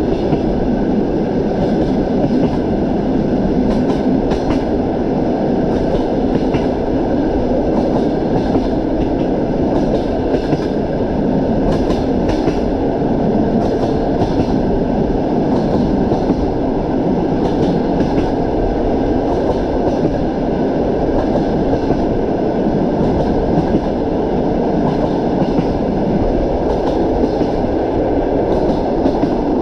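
Moving train's wheels clacking over rail joints, with sharp clicks at uneven intervals over a steady rolling rumble.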